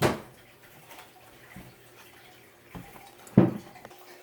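Wet, sticky slime being squished and kneaded by hand, with two louder squelches, one at the start and one about three and a half seconds in, and a few faint ones between.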